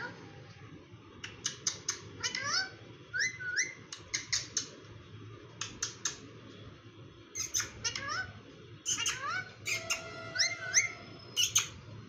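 Indian ringneck parakeet chattering: bursts of short, high squeaks and quick rising chirps mixed with clicks, coming in clusters every second or two.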